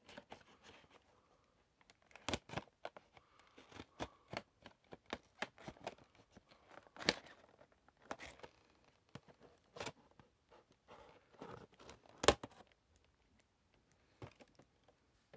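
Scissors snipping into a cardboard action-figure box, with the packaging crinkling and tearing between the cuts. Short sharp snips come irregularly, the loudest about two and twelve seconds in.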